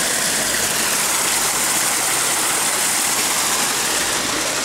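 Running water pouring into a small foamy pond: a steady rushing, splashing noise with no break.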